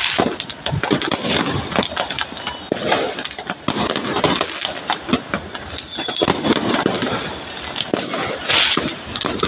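Fireworks and firecrackers going off all around, a dense, continuous crackle of overlapping bangs and pops.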